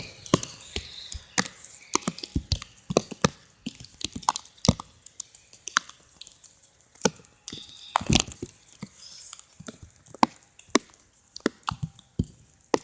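Irregular sharp crackles and taps from the plastic wrap over the camera's microphone, several a second, with a few louder cracks.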